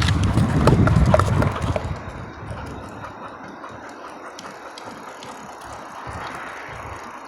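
Bicycle coasting fast downhill, rattling over the trail. A loud low rumble of wind on the microphone eases off about two seconds in, leaving a steadier, quieter hiss of rolling.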